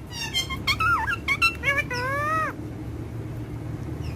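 Parrot vocalizing: a quick run of high, sliding calls, ending about two and a half seconds in with one longer call that falls in pitch.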